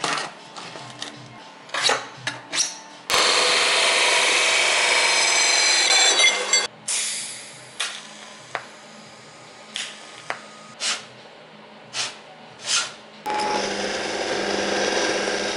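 Workshop sounds in quick succession: light metal clicks and knocks while a caster is fitted, a loud steady hiss lasting a few seconds, then six short bursts of a welding arc tacking stacked steel plates. Near the end a drill press starts boring through steel, a steady cutting noise.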